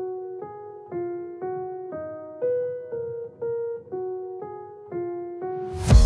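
Background music: a keyboard melody of single notes, about two a second, each fading away. Near the end, drums and a cymbal crash come in and the music gets louder.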